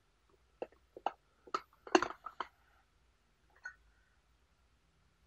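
Several light taps and clinks of glassware against a metal tea strainer and porcelain teacup, the loudest about two seconds in, with one more tap a little later.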